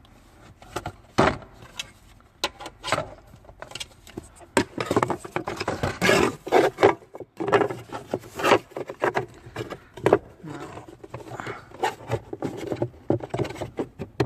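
Irregular plastic clicks, knocks and scraping as a cabin air filter is handled and slid into its plastic housing behind the glove box of a Lexus ES 300h, busiest in the middle of the stretch.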